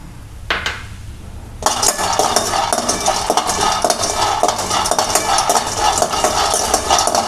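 Raw peanuts being dry-roasted in a metal kadai and stirred with a steel spoon: the spoon scrapes the pan and the nuts rattle against it in a continuous clatter that starts about a second and a half in.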